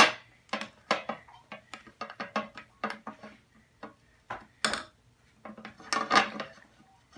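A spoon clinking and scraping against a pan while a thick, hard-to-stir mixture is stirred, in irregular knocks, the sharpest right at the start.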